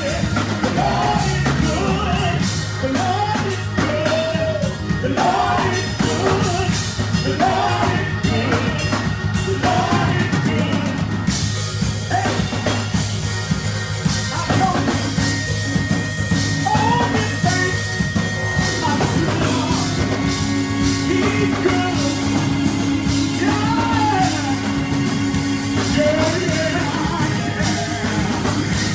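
Gospel praise-and-worship music: voices singing a melody over a band with drum kit and a steady bass line.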